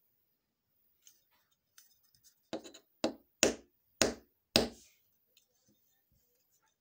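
An LED bulb knocked against a wooden tabletop five times in quick succession, each a sharp knock with a short ring, after a few faint handling clicks.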